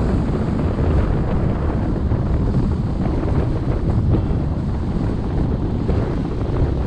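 Steady wind noise on the microphone of a camera moving along a street: a continuous rushing rumble, heaviest in the low end.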